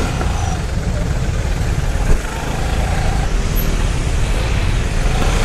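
A motorcycle riding through slow, dense city traffic: its engine runs under a steady low rumble of wind on the bike-mounted microphone, with the surrounding cars around it.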